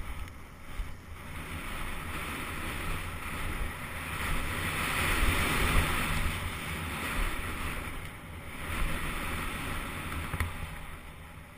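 Wind rushing over the microphone of a mountain bike's action camera, with tyres rolling on a dirt track, as the bike rides downhill over jumps. The rush swells to its loudest about midway and eases off near the end.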